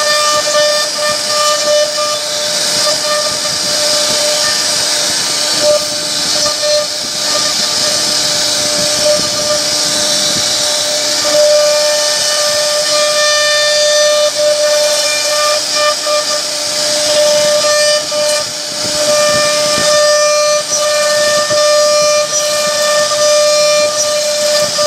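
CNC router spindle running with a steady high whine as its bit carves relief patterns into a wooden door panel, over a constant hiss of cutting.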